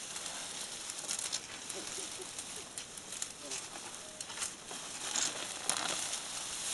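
Rustling and crackling of bushes and grass as an African elephant feeds close by, with many small snaps and crunches of vegetation.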